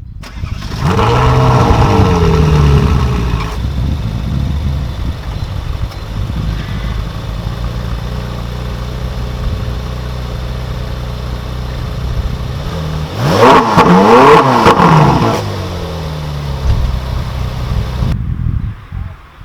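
Sports car engine revving hard and then falling back to a deep, steady rumble. About 13 seconds in there is a second burst of sharp revs, loudest of all, before it settles again.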